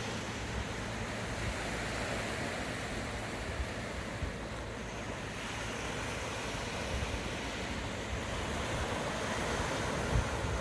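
Sea waves washing onto the shore, the surf swelling and easing every few seconds. Wind gusts rumble on the microphone.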